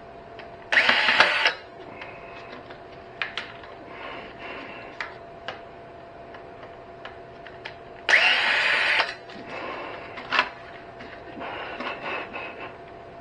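Two short bursts of harsh, hissing noise, about a second in and again about eight seconds in, with scattered clicks and taps of metal parts being handled between them over a faint steady hum.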